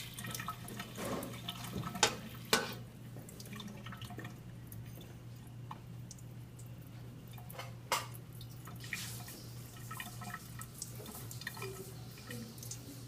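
Water dripping into a sink in irregular small ticks, with a few sharper knocks about two seconds in and again about eight seconds in, over a steady low hum.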